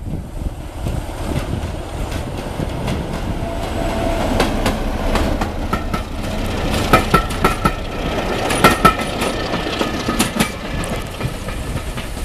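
BR Class 33 diesel locomotive D6515 hauling coaches past at speed, its Sulzer diesel engine running under power as it approaches. Once the locomotive is alongside, about seven seconds in, a run of sharp clacks from the wheels over the rail joints is the loudest part.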